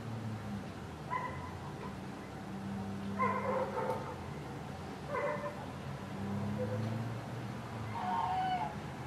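An animal calling: four short, pitched cries a couple of seconds apart, the last one falling in pitch, over a low hum that comes and goes.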